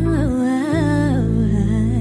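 Female R&B singer's wordless, wavering vocal run over a held low chord from the live band, the closing phrase of the song.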